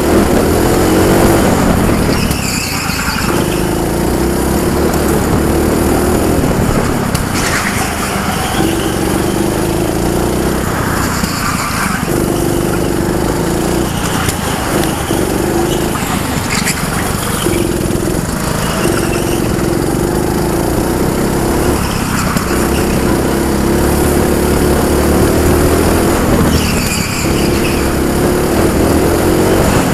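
Junior go-kart's small petrol engine running hard on track, its steady note held for a few seconds at a time and dropping away briefly every two to four seconds as the kart lifts off for corners. Short tyre squeals come at several of those drops.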